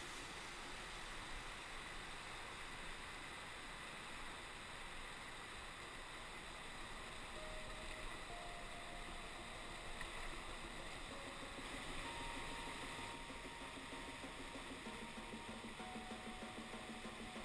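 Steady rush of whitewater river rapids.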